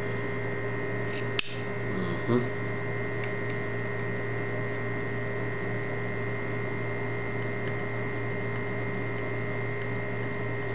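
Steady electrical hum, broken by one sharp metallic click about a second and a half in and a brief rattle just after, from a lever lock case and pick tool being handled in a bench vise; a few faint ticks follow.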